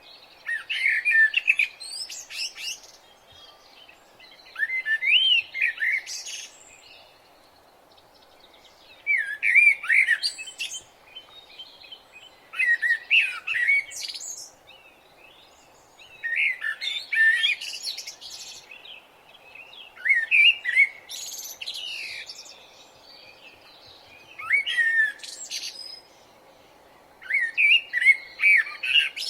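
Birds chirping: short bursts of song, each lasting about two seconds and repeated roughly every four seconds, over a faint steady background noise.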